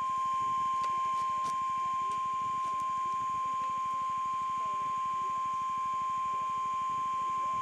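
NOAA Weather Radio 1050 Hz warning alarm tone, sounded as part of the required weekly test of the tone alert system. It is one steady, unwavering high tone that switches on abruptly.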